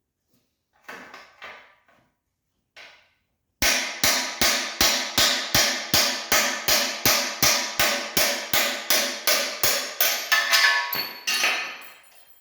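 Hammer blows on a drift set against the steering-head bearing race in a Honda ATC250R's frame, a steady run of ringing metal strikes about two to three a second, driving the race out. Near the end the blows run together into a rattle and stop.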